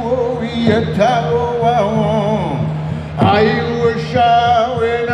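A man singing long, wavering held notes over a steady low drone, with a large hand-held frame drum struck a couple of times.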